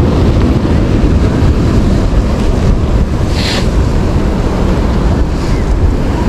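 Wind buffeting the microphone over the steady wash of ocean surf, with a brief hiss about three and a half seconds in.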